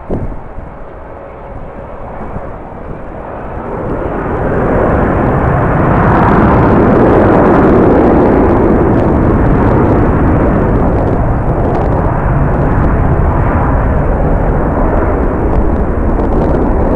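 Jet airliner's engines, a loud rushing rumble that swells over the first few seconds and stays loud.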